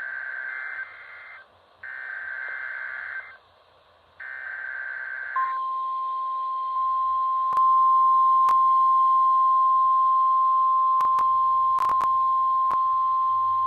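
Emergency Alert System SAME header on NOAA Weather Radio: three short buzzy data bursts with brief gaps between them, the first already under way. From about five seconds in comes the steady, single-pitch 1050 Hz warning alarm tone, with a few sharp static clicks over it. Together they signal a Severe Thunderstorm Warning.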